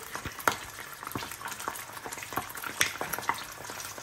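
Tomato sauce in olive oil sizzling in a pan, with scattered irregular pops and crackles.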